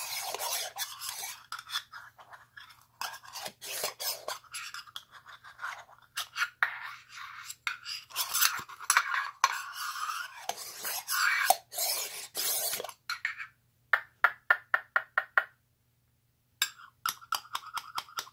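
The metal halves of a small round tin container scraping and rubbing as they are handled and twisted together. About two-thirds of the way through come runs of quick, light metallic clicks, with a short pause between them.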